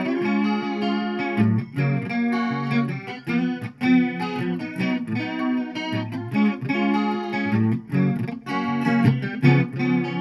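Electric guitar played through chorus, slapback delay and a light overdrive, picking a steady run of single notes and chords.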